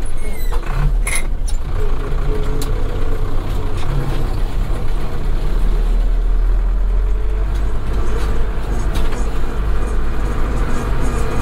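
Zetor 7211 tractor's 3.6-litre four-cylinder diesel engine running steadily under way, heard from inside the cab. A few sharp clicks and rattles come in the first second or two.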